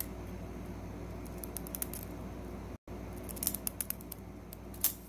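Small metal clicks and taps of a pin-tumbler lock being disassembled, with tools worked against the housing to get the last driver pin and spring out. A steady low hum runs underneath, and the clicks come more often in the second half.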